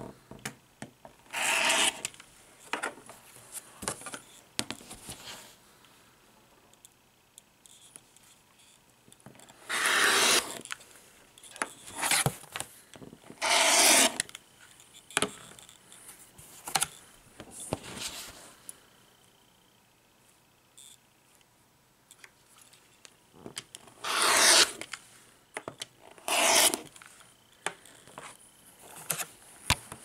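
Rotary cutter drawn along an acrylic quilting ruler, slicing through sewn fabric and its half-square-triangle foundation paper on a cutting mat: about six separate scraping cuts, each about a second long, with pauses and quieter handling of the ruler between them.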